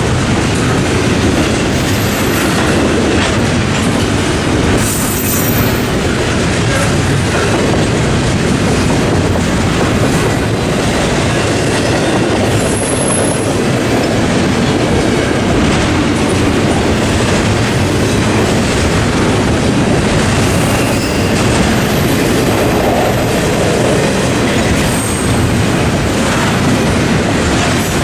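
Double-stack intermodal freight cars rolling steadily past, a continuous loud rumble of steel wheels on rail, with brief high wheel squeals now and then.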